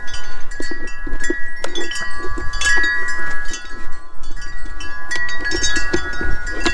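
Wind chime ringing, several sustained tones between about 1 and 2 kHz overlapping and being struck again every second or so, over a low rumble of wind and a few light clicks.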